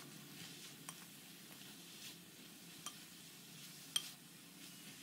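Wooden spatula stirring sliced onions frying in coconut oil in an aluminium pan: a faint sizzle with a few sharp clicks of the spatula on the pan, the loudest about four seconds in. The onions are being sautéed toward golden brown.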